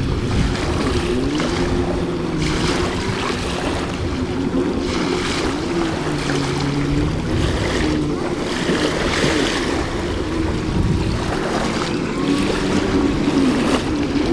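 Stand-up jet ski engine revving up and down over and over as the craft spins and drifts, its pitch rising and falling, with the hiss of water spray.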